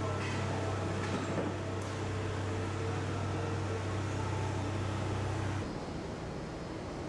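Steady low electrical hum of onboard equipment in a JR Central 373 series electric train, cutting off suddenly about five and a half seconds in, leaving quieter background noise.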